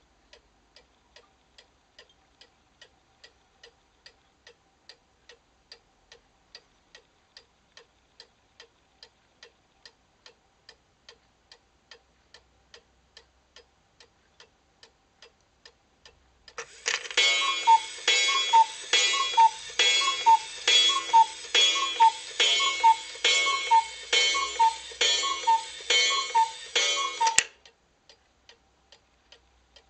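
Wooden cuckoo clock ticking steadily and faintly, about two to three ticks a second. About 17 seconds in, its cuckoo starts calling over and over, much louder, for about ten seconds, striking twelve o'clock, then stops suddenly while the ticking goes on.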